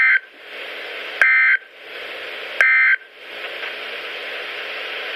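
NOAA Weather Radio EAS end-of-message data bursts: short, loud two-tone digital warbles, the tail of one just at the start and then two more about 1.4 s apart, marking the end of the warning broadcast. Steady radio hiss fills the gaps and runs on after the last burst.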